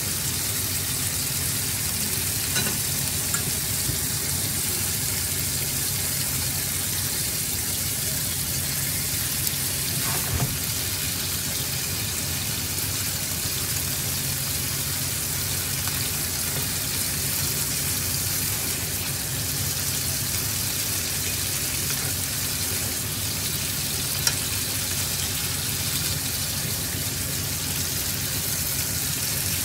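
Food sizzling steadily as it fries in a pan, with a few light clicks and knocks now and then.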